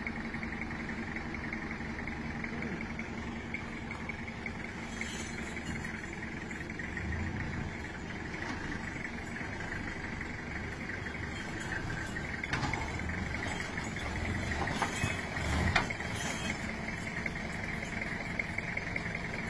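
A vehicle engine running steadily, with a few short knocks and thumps over it, the loudest about sixteen seconds in.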